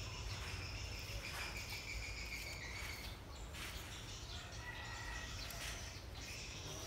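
Outdoor ambience of high, thin chirping calls that hold and step in pitch, over a steady low rumble.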